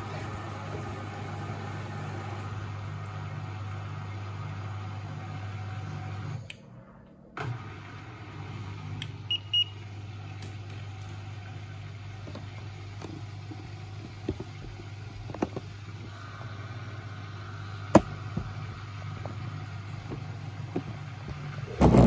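Beko ECOWMB81445LW front-loading washing machine in its wash phase: the drum motor hums steadily as the drum turns, stops for about a second roughly a third of the way through, then starts up again for the next tumble. A few short clicks and knocks come from the drum later on.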